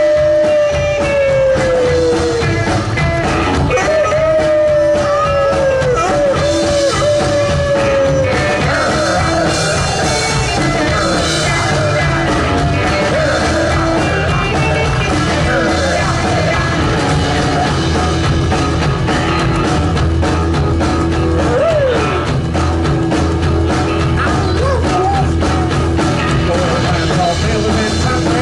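Live rock and roll band playing: electric guitar, upright double bass and drums, with a steady bass line throughout. In the first eight seconds a voice holds long falling 'oh' wails over the band.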